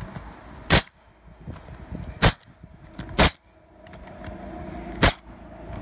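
Pneumatic roofing nail gun firing nails through asphalt shingles: four sharp shots, spaced unevenly one to two seconds apart.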